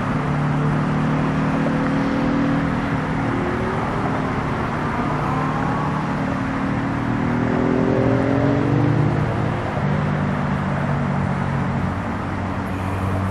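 Engine running steadily, its pitch rising and falling several times.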